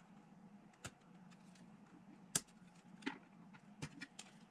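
Sprue cutters snipping a plastic miniature part off its sprue: about five sharp clicks, the loudest about halfway in, over a faint steady low hum.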